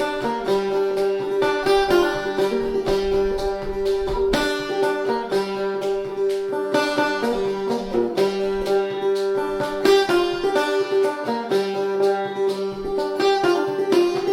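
Solo clawhammer banjo playing an old-time fiddle tune in a G tuning: a quick, steady run of plucked notes over a constantly ringing drone string.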